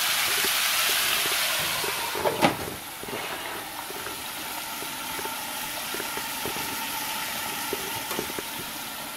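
Chicken of the woods mushroom pieces and red onion sizzling in olive oil in a sauté pan, a steady hiss that is louder at first. About two and a half seconds in, a single clink as the glass lid is set on the pan, after which the sizzle goes on quieter and steady with faint pops.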